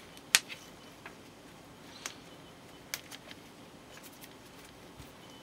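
Small plastic Nendoroid figure parts being handled and pressed together by gloved hands: a sharp snap about a third of a second in, then a few lighter clicks spread through the rest.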